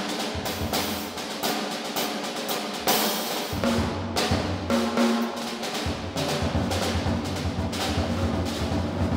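Live jazz rhythm section, drum kit, piano and upright bass, playing an up-tempo tune without the trumpet. The drums are prominent, with quick, regular snare and cymbal hits over piano chords; the low bass notes drop out for stretches in the middle.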